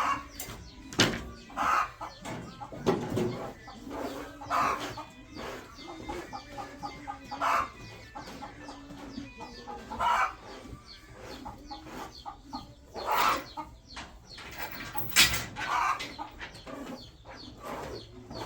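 Chickens clucking in short repeated calls, with two sharp knocks, the louder one near the end.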